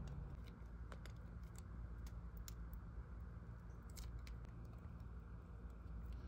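Faint scattered clicks and crinkles from a hair-dye cream tube being squeezed out into a plastic mixing bowl, over a low steady hum.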